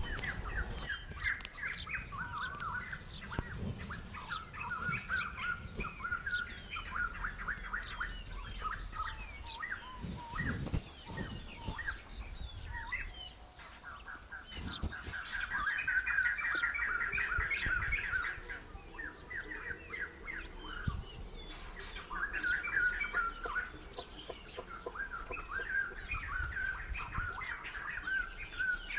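Small birds chirping and twittering without a break, with one busier stretch of rapid chirps about halfway through.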